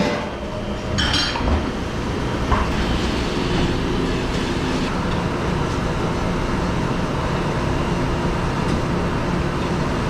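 Dishes clink briefly about a second in, then a steady, even running noise from restaurant dishwashing equipment carries on unchanged.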